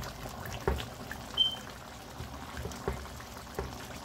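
A slotted spoon stirring thick tomato chicken stew in a pot, the sauce sloshing, with a few light knocks of the spoon against the pot and one brief clink.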